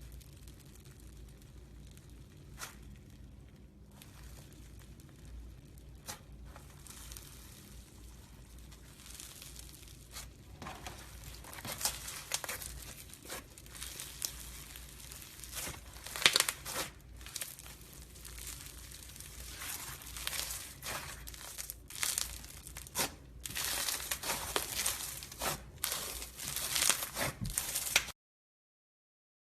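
Slime being squeezed and stretched by hand: irregular crackling, popping and crinkling, sparse at first and growing louder and busier through the second half, then cutting off to silence near the end.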